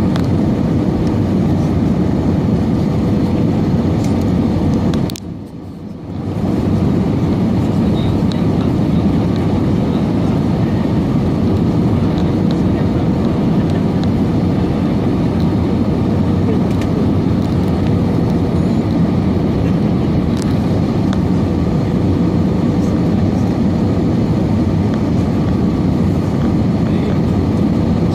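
Steady roar of an Airbus A320's engines and airflow heard inside the passenger cabin, with a faint steady hum in it. About five seconds in it briefly drops away and comes back.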